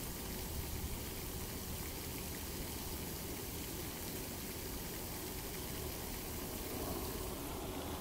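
Steady rush of fountain water splashing and running into a pond.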